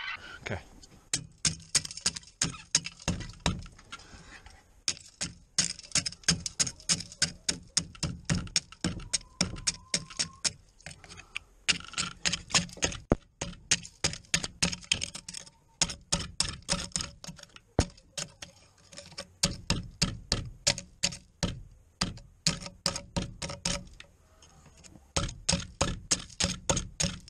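Old diving knife stabbing and chipping at ice frozen in a chicken waterer: a long run of sharp cracking strikes, several a second, in bursts broken by short pauses.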